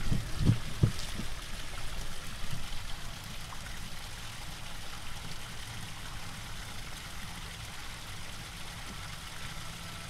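Running water flowing in a steady trickle, with a couple of soft knocks in the first second.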